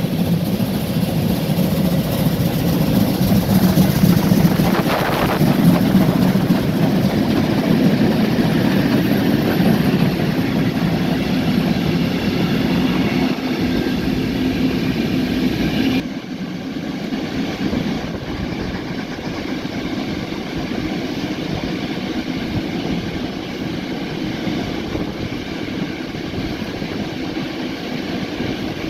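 Two steam trains working hard up a steep incline side by side, heard from an open carriage window: the exhaust of the locomotives mixed with the steady running of wheels on rail. About halfway through the sound drops suddenly to a quieter, duller level.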